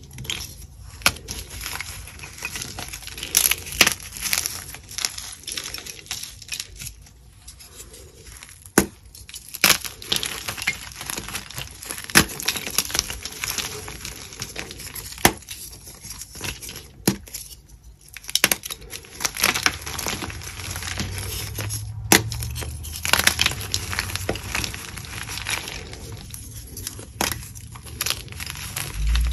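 Blocks of gym chalk, plain white and pink-dyed, crushed and crumbled between bare hands: irregular crunching with sharp snaps and crackles as the pieces break.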